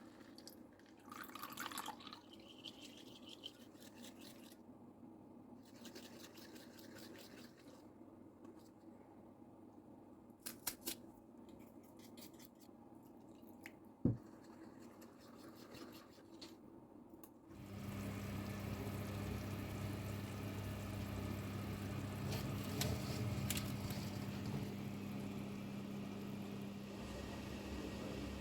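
Light kitchen handling noises with scattered clicks and one sharp knock, then an electric appliance switches on about two-thirds of the way in and hums steadily.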